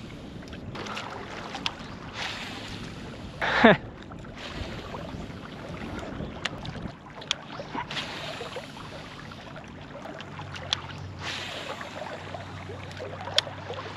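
Legs wading through shallow water, swishing and splashing in repeated surges with each step, with a few sharp clicks. About three and a half seconds in, one brief, loud falling whine.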